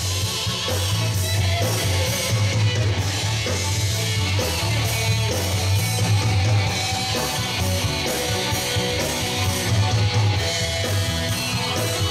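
Live band playing an upbeat dance song with a steady beat and a heavy bass line, with a singer's voice at times.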